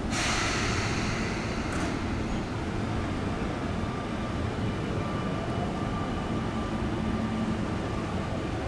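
Sotetsu Line electric train at a station platform: a burst of air hiss for the first second and a half, ending in a short sharp hiss, then a steady rumble with faint steady tones.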